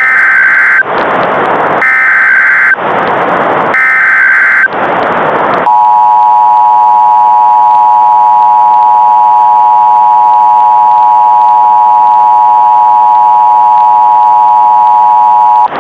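Emergency Alert System tones. First come three short screeching bursts of the digital SAME header, each followed by a burst of hiss. Then the steady two-tone EAS attention signal holds for about ten seconds.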